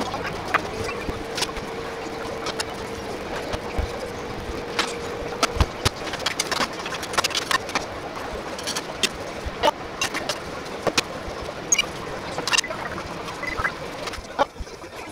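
Irregular clinks and knocks of dishes and tableware being set down on a wooden counter, over a steady hum that stops about five seconds in.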